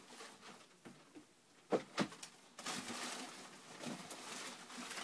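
Items being handled in a cardboard shipping box: two sharp knocks about two seconds in, then rustling of paper and cardboard as the box is rummaged through.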